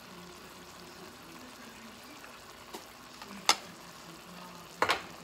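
Faint steady sizzle from a pot of chicken feet heating in soy sauce and vinegar. Two sharp clicks of a small spoon, about three and a half seconds in and again near the end.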